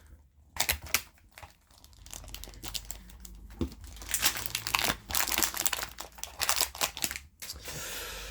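Crinkly wrapping being crumpled and torn open from around a new speedcube, in irregular crackling bursts that go on for about seven seconds.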